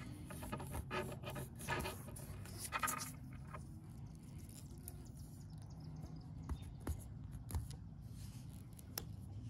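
Faint rubbing and scraping of hands handling things for the first three seconds or so, then a few scattered light clicks over a low steady hum.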